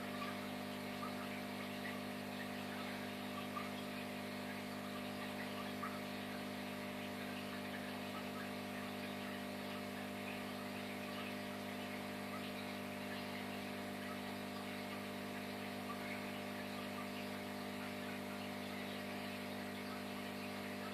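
Steady hum of running aquarium equipment, with a faint crackling fizz of air bubbles streaming up from bubble wands.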